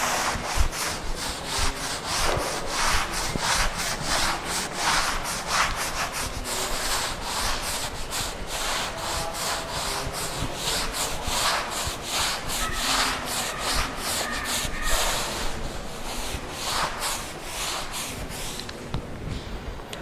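Chalkboard eraser (duster) scrubbing chalk off a blackboard in quick back-and-forth strokes, about two to three a second, stopping near the end.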